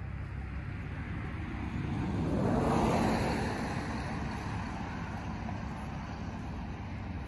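A road vehicle drives past, its noise swelling to a peak about three seconds in and then fading, over a steady low rumble.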